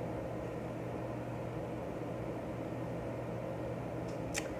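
Steady low hum and hiss of room tone, with one short click near the end.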